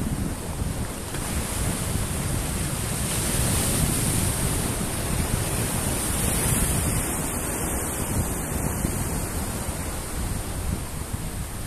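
Sea waves breaking and washing against a rock breakwater, with wind buffeting the microphone. The surf swells louder around the middle as a wave crashes into the rocks.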